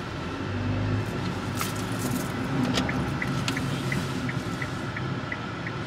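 Car cabin noise with a steady low rumble; from about halfway through, the turn-signal indicator ticks evenly, about three clicks a second.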